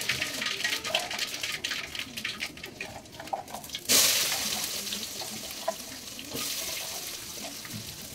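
Wood fire crackling under the pan, then about four seconds in, wet chopped raw papaya hits the hot pan and sizzles loudly. The sizzle slowly dies down and rises again briefly about two and a half seconds later.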